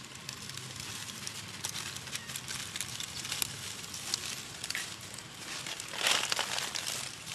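Dry fallen leaves crackling and rustling under the feet of walking macaques, with a louder burst of rustling about six seconds in.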